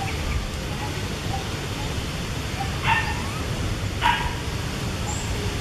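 Two short, high-pitched animal calls about a second apart, over a steady low rumble.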